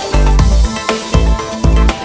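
Electronic background music with a steady bass beat, about two beats a second.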